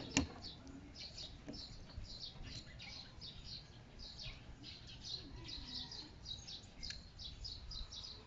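Small birds chirping in quick runs of short, high-pitched notes. A single sharp plastic click sounds just after the start as the fender signal light and its connector are handled.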